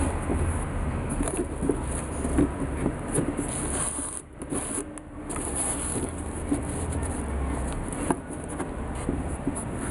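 Steady background noise with a low hum, and scattered light clicks and rustles of hands handling sneakers in a cardboard box.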